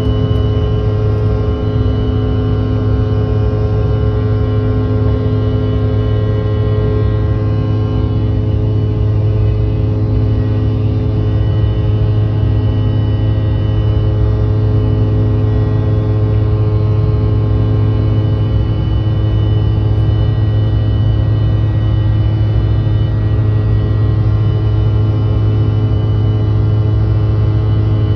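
Cabin noise of a Mitsubishi CRJ-900 regional jet in flight after takeoff: its two rear-mounted GE CF34 turbofans give a steady, loud drone, a deep hum with several steady whining tones over it.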